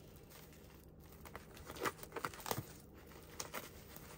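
Clear plastic wrap crinkling and tearing as it is peeled off a vinyl pouch: faint, irregular crackles and rustles, the loudest about two seconds in.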